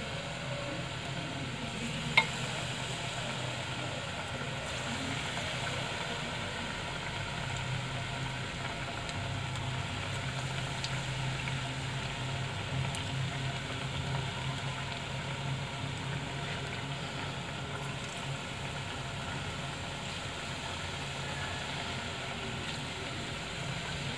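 Batter-coated idli pieces deep-frying in hot oil in a kadai, the oil sizzling and bubbling steadily. A single sharp click about two seconds in.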